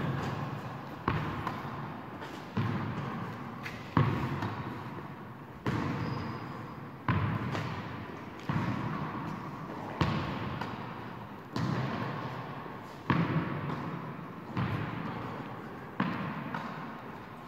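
Tennis ball struck back and forth with rackets in a long rally, a sharp hit about every second and a half, each one echoing in the gym hall.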